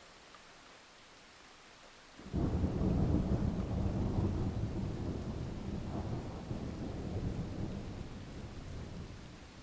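Thunder over steady rain: a low rumble breaks in suddenly about two seconds in and slowly dies away.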